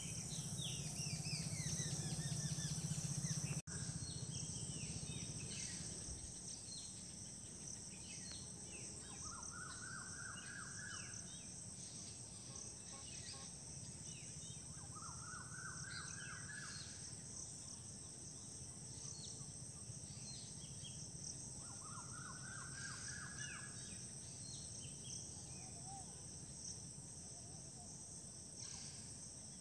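Outdoor ambience: a steady high insect drone with scattered bird chirps, and one bird repeating a short rising trilled phrase three times, about six seconds apart. A low hum is loudest in the first few seconds, then fades.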